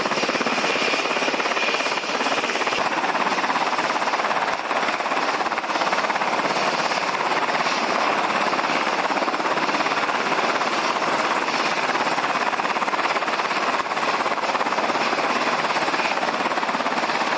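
UH-60L Black Hawk helicopter running close by, low over the ground: a steady, loud rotor and turbine noise with a fast, even chop of the blades.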